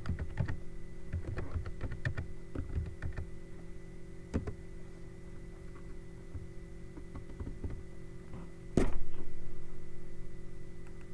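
Typing on a computer keyboard: a quick run of key clicks over the first three seconds or so and a single click about four seconds in, over a steady background hum. About nine seconds in comes a single louder thump that fades over a couple of seconds.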